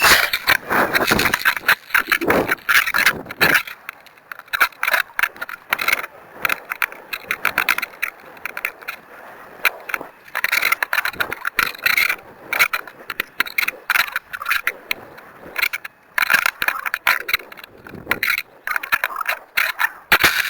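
Irregular scraping, rubbing and clicking close to the microphone, like handling noise, with many short uneven strokes that cut off suddenly at the end.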